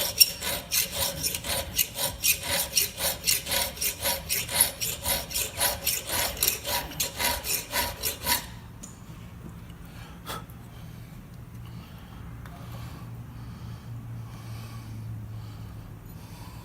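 Metal file rasping by hand over the welded-up square drive end of a string trimmer's inner shaft, in quick, even strokes about two and a half a second, dressing the worn square back down to fit. The strokes stop about eight seconds in, followed by a single sharp click.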